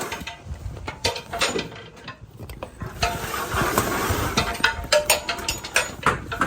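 Curtainside trailer curtain being slid back along its top rail, with a run of rattling clicks and clanks from the runners and buckles.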